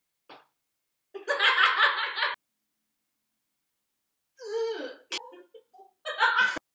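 People laughing in three short bursts, each about a second long, separated by dead silence; a sharp click comes about five seconds in.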